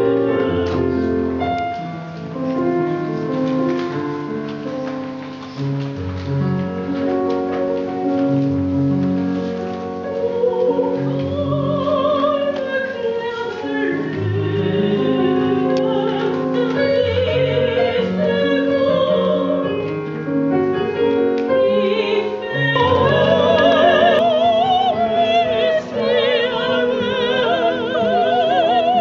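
Grand piano playing, joined about ten seconds in by a woman singing in operatic style with a wide vibrato, her voice growing stronger in the last few seconds.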